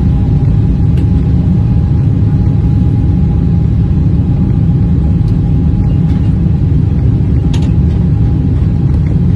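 Boeing airliner's turbofan engines running, heard from inside the passenger cabin as a loud, steady rumble with a thin steady whine above it.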